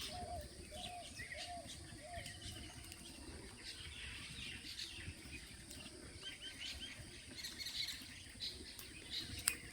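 Several birds chirping and calling, with a run of short, repeated mid-pitched notes in the first couple of seconds and thin high chirps throughout, over low rural background noise. A single sharp click sounds near the end.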